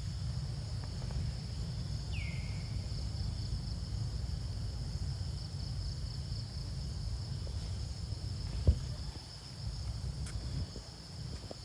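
Steady high-pitched insect drone of the forest, over a low rumble, with one short falling call about two seconds in and a single sharp click near the end.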